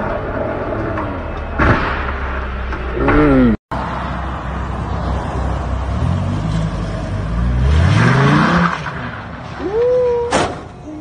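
Sports car engines revving hard with tyre noise as the cars drift. After a brief break about a third of the way in, a second car's engine climbs steeply in pitch as it revs up, and a single sharp knock comes near the end.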